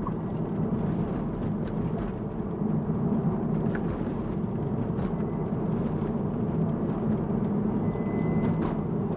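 Steady road and tyre noise inside the cabin of a Tesla Model 3 electric car driving along a road, with a few faint clicks. A faint thin high tone comes in about halfway through.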